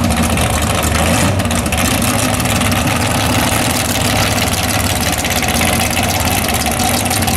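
Drag-race vehicle engines idling, a loud, steady rumble.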